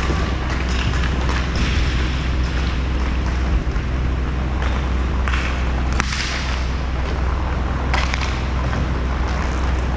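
Roller hockey play on a sport-court rink: a steady low rumble with the rolling and scraping of skates, and sharp clacks of stick and puck, the loudest about six seconds in and again about eight seconds in.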